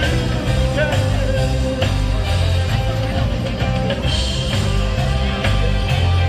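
A band playing rock and roll: guitar over a strong bass line and a steady beat, with some singing.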